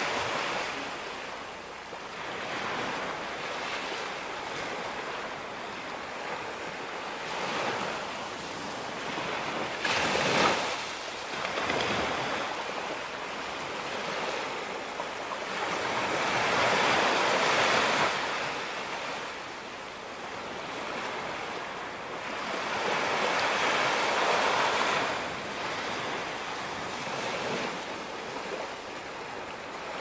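Small waves breaking and washing up a sandy beach: a steady hiss of surf that swells and eases every six or seven seconds, the sharpest swell about ten seconds in.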